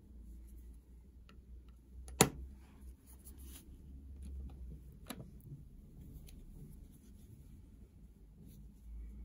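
Small clicks and taps from a coin being handled, with one sharp click about two seconds in and another about five seconds in, over a low steady hum.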